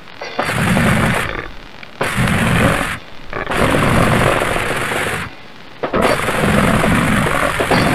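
Goregrind/gorenoise recording: dense, harsh distorted noise in stop-start blasts of a second or two, four of them broken by short gaps.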